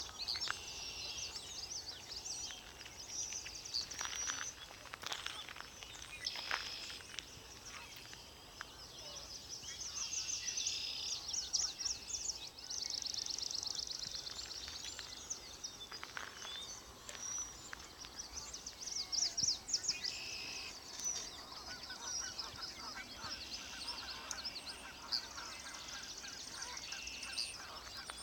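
Several wild birds singing: many high chirps, whistles and rapid trills overlapping. A lower honking call joins in during the last several seconds.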